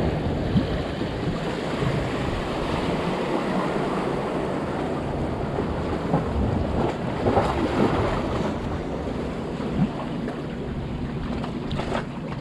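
Small waves washing and splashing against jetty rocks, with wind buffeting the microphone, and a passing motorboat's engine running underneath.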